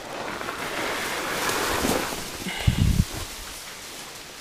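Tall grass and reed leaves brushing and rustling against the microphone, swelling over the first two seconds, with a short dull thump just under three seconds in.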